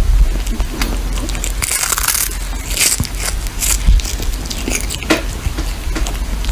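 A kitten chewing and crunching on a small whole fish, close to the microphone, in uneven crunchy bites.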